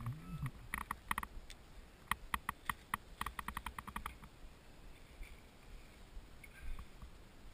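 Mountain bike freewheel hub ticking in irregular runs of sharp clicks, about five a second, as the bike is moved. The clicks stop about four seconds in.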